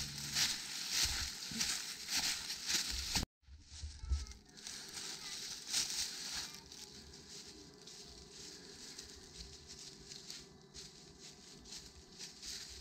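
Footsteps crunching and rustling through dry fallen leaves in quick, uneven strides, loud at first. The sound cuts out abruptly about three seconds in, and fainter rustling of feet in the leaf litter follows.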